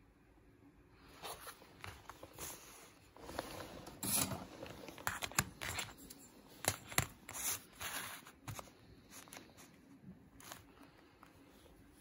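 Plastic membrane keypad sheet being handled, turned over and laid down on a table: a run of short scrapes, crinkles and a few sharp clicks, starting about a second in, loudest in the middle and dying away after about nine seconds.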